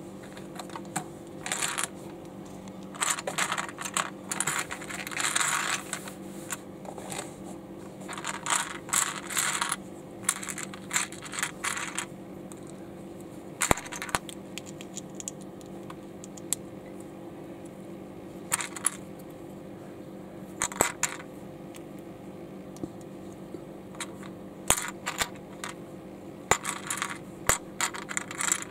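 Small plastic LEGO bricks clattering and clicking in irregular handfuls as they are sifted and handled, with a few single sharp clicks, over a steady low hum.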